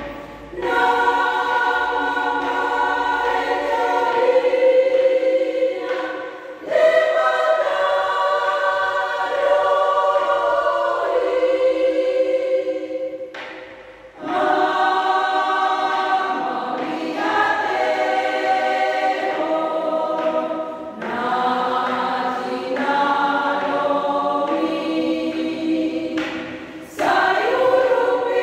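Women's church choir singing a hymn together in rehearsal, in sung phrases broken by short pauses for breath.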